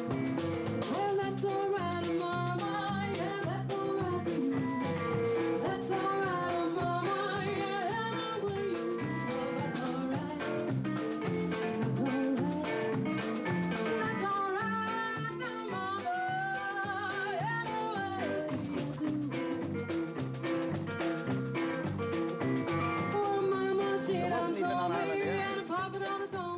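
A live blues band playing: a woman singing lead into a microphone over an orange hollow-body electric guitar, electric bass and drum kit, with a steady beat.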